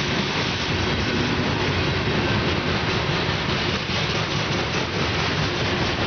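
Steel wheels of a coal train's gondola cars rolling past close by on the rails: a steady, even noise of wheels on track.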